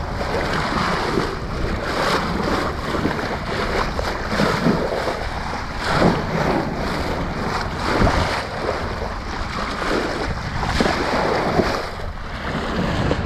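Bow wave rushing and splashing along a sailing yacht's hull as it sails through open-ocean swell, with a few louder surges as the bow meets waves. Wind buffets the microphone with a low rumble.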